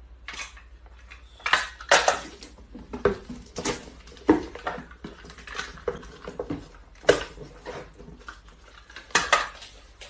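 Packing tape pulled off a handheld tape dispenser and cut, with small cardboard boxes being handled and taped shut: a string of short, sharp noises at irregular intervals.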